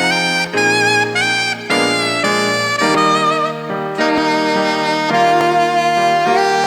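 Instrumental music: a saxophone playing a slow melody of held notes with vibrato over a sustained accompaniment.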